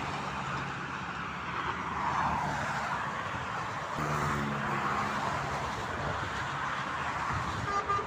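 Motorway traffic passing: a steady rush of tyre and road noise, with the engine drone of passing vehicles swelling about a second in and again around four seconds in. A brief high tone sounds near the end.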